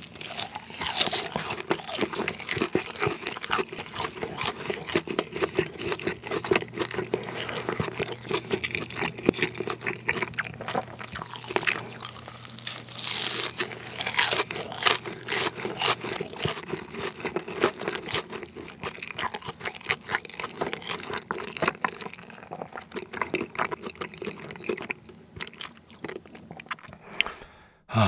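Close-miked crunching and chewing of a BHC Bburing hot dog, a fried, coated hot dog with melted cheese inside: crisp crackles of the coating between the teeth, steady chewing, thinning out near the end.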